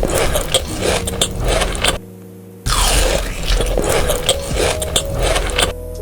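Loud scraping, rattling noise full of sharp clicks, in two long stretches with a short break about two seconds in.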